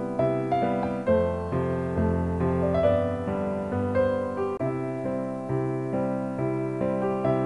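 Piano music: a slow melody over bass notes that change about once a second.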